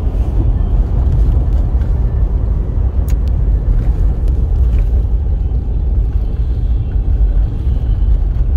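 Steady low rumble of a vehicle driving on a snow-covered road, heard from inside the cabin: engine and tyre noise, with a couple of faint ticks about three seconds in.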